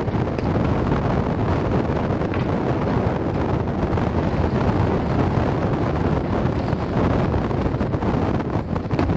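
Steady wind buffeting the microphone on deck of a sailing yacht at sea, a dense low rumble of wind noise.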